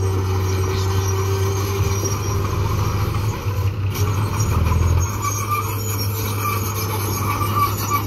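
Diesel engine of a small dump truck running steadily at low revs, swelling briefly about four to five seconds in, with intermittent high squeaks over it.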